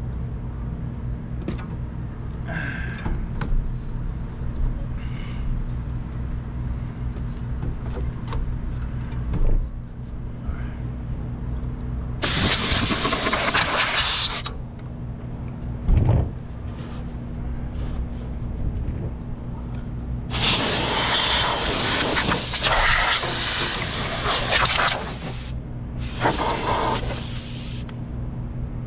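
Three bursts of hissing spray from a hand-held nozzle worked around an open rooftop RV air-conditioner: the first about 12 s in lasting two seconds, a longer one of about five seconds from around 20 s, and a short one just after. A steady low hum runs underneath, with a few knocks.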